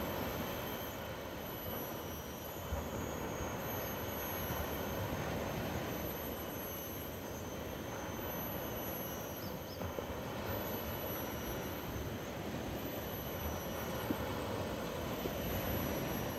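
Surf on a sandy beach: small waves breaking and washing over the shallows, a continuous rushing that swells and eases slightly.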